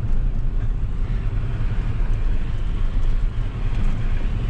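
Ram 3500 pickup driving while towing a loaded trailer, heard from inside the cab: a steady, low engine and road drone.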